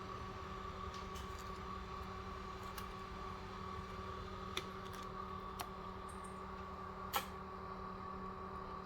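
Steady electrical hum from running bench equipment, with a few light clicks of small tools or parts; the sharpest click comes about seven seconds in.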